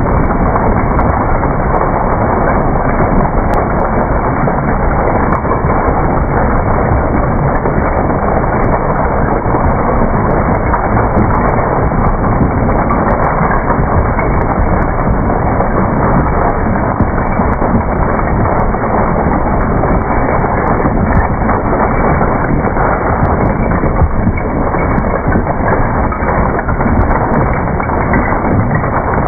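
Raveo HP hydraulic cone crusher running choke-fed with its crushing chamber full of rock: a loud, steady, dense grinding rumble with irregular crunches of stone breaking.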